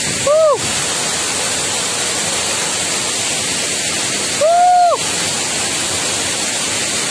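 Waterfall pouring, a steady rush of water. Twice, near the start and about four and a half seconds in, a short call rises and falls in pitch over it.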